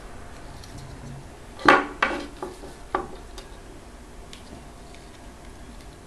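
Pliers and small metal and plastic parts clinking and tapping as they are picked up and handled: a quick run of four sharp clicks, the first the loudest, about two seconds in.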